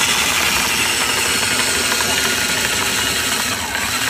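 Electric anchor windlass running, hauling the anchor chain in over the bow roller: a loud, steady motor and chain noise.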